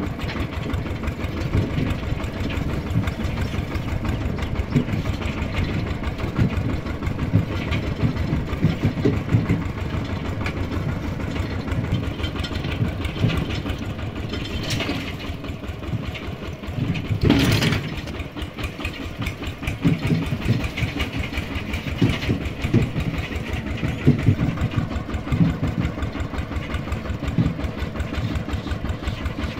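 Two-wheel walking tractor's single-cylinder diesel engine chugging steadily with a fast, even beat as it pulls its trailer along a dirt track. A brief louder burst of noise comes about halfway through.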